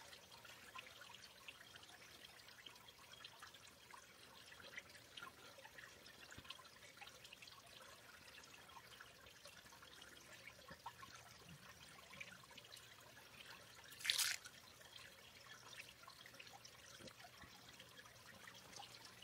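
Faint trickle and small drips of a shallow creek at the edge of hearing. About fourteen seconds in, one short, loud splash of water.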